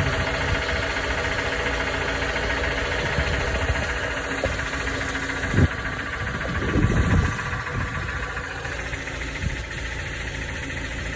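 2019 Toyota RAV4's 2.5-litre four-cylinder engine running steadily at idle, with the knock that the owner posts as engine knock. A few louder low thumps come about halfway through.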